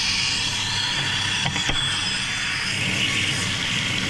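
Water running steadily from a newly fitted bath mixer spout into the tub while the tap is tested, with a couple of light clicks about a second and a half in.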